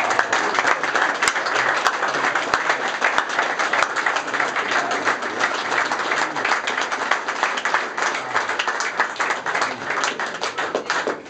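A crowd applauding: many people clapping together, thinning out near the end.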